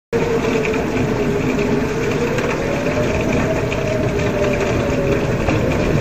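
Outdoor tornado warning siren wailing, its pitch rising slowly and then falling, heard under strong wind blowing across the microphone.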